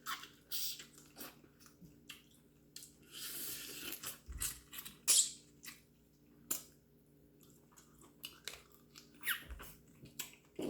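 Close-up mouth sounds of a person eating seafood: wet chewing, lip smacks and small clicks, scattered irregularly, with a brief rustling hiss about three seconds in.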